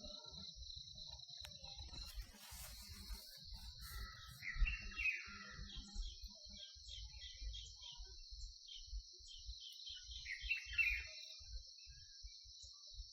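A peacock calling twice, about four seconds in and again near eleven seconds, over a steady high drone of insects and a low rumble.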